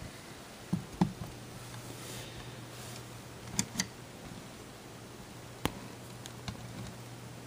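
A few light knocks and clicks from handling the camera and the spiral sketchbook, over a faint low steady hum.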